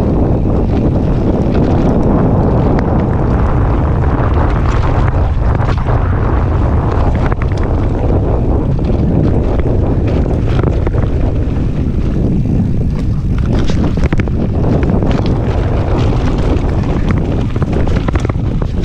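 Mountain bike riding fast over rough trail: wind buffeting the microphone over a steady rumble of tyres, with frequent sharp knocks and rattles from the bike.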